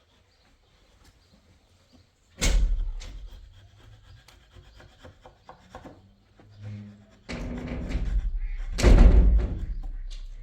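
A wooden door banging shut hard about two seconds in, then more banging and knocking from about seven seconds in, loudest near the end, as the door is worked on in its frame.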